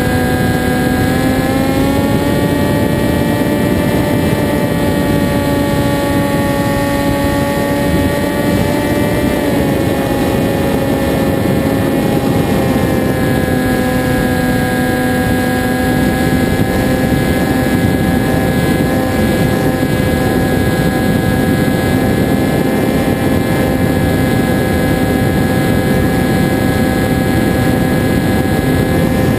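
Motor and propeller of a Zagi RC flying wing, heard from a camera mounted on the wing: a steady droning note over rushing wind noise. The pitch drops a little about ten seconds in and again near twelve seconds, then holds steady as the throttle is eased.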